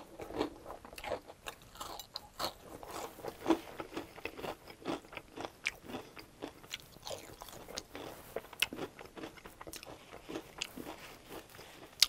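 Chewing of breaded deep-fried pickle chips: irregular crunches as the crisp breading is bitten and chewed.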